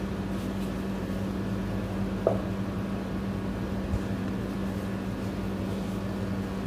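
Steady low machine hum, like a running motor or fan, with a short squeak about two seconds in and a soft knock about four seconds in.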